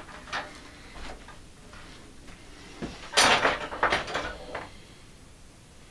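Steel wire and metal parts handled at a bench vise: a few light clicks, then a short run of metallic clanks and rattles about three seconds in.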